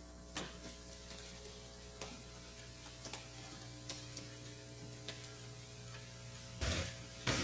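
Steady electrical hum in a quiet hall, with faint scattered clicks and shuffles. Near the end, two louder short knocks.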